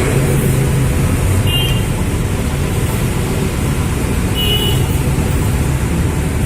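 Kopaja city bus's diesel engine running steadily under way, with road and traffic noise, and a brief faint high squeak twice.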